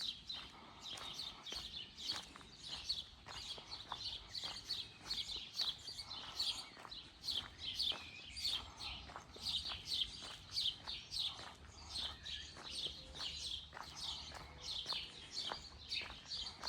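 Small birds chirping over and over, short high chirps several a second without pause, with the footsteps of someone walking underneath.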